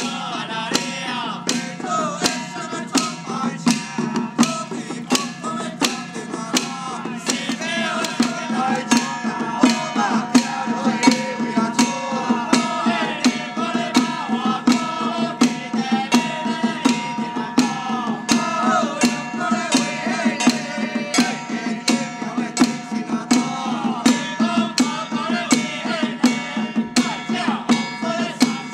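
A group of men chanting together while beating small handheld drums on handles with sticks, in a steady beat of about two strikes a second.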